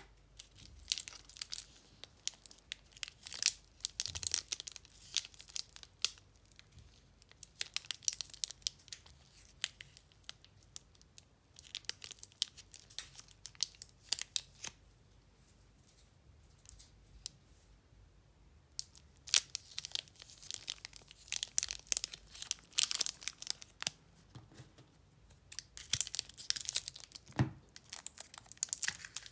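Paper and foil chocolate wrappers crinkling and tearing as they are handled and unwrapped, in bursts of crisp crackles with quieter gaps through the middle and denser crackling in the last third.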